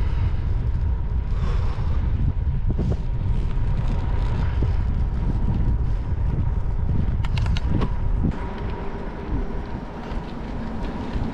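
Wind buffeting the microphone of a camera on a bicycle rolling along a gravel road, with tyre noise and a few quick rattles. The wind eases about eight seconds in.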